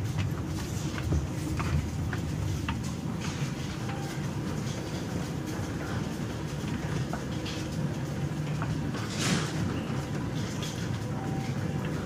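Red Line subway train rumbling steadily, with scattered light clicks and rattles and a short hiss about nine seconds in.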